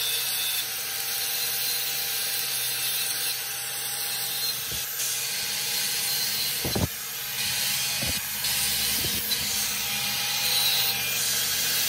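Electric angle grinder running steadily with an abrasive disc grinding metal: a constant high hiss of abrasion over the motor's whine, with a few brief knocks as the disc meets the work.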